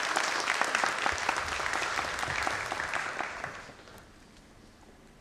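Audience applauding, dense clapping that dies away about three and a half seconds in.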